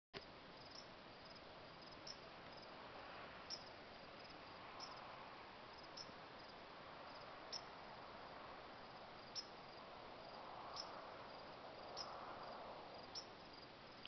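Crickets chirping faintly in a steady high-pitched chorus, with a faint click every second or so.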